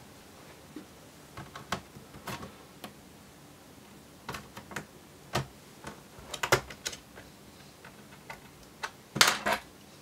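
Plastic snap clips of a Dell Inspiron 15 3501 laptop's base panel clicking loose as a plastic pry tool and fingers work along the edge: irregular sharp clicks, with the loudest quick cluster near the end.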